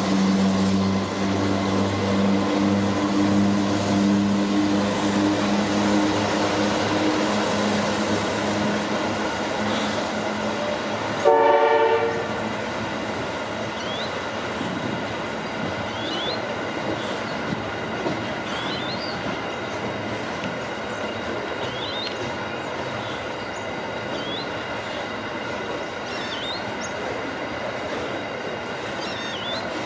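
Diesel-electric freight locomotive passing with its engine running, its hum fading over the first several seconds, then a long train of loaded mineral wagons rolling by with steady wheel-on-rail noise. About eleven seconds in, a brief loud horn blast.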